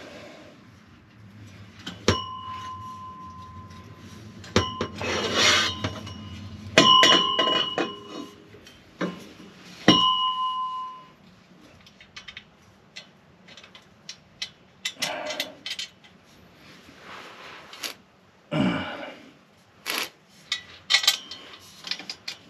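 Metal tools and hardware clinking and clattering, with three ringing metallic strikes about two, seven and ten seconds in.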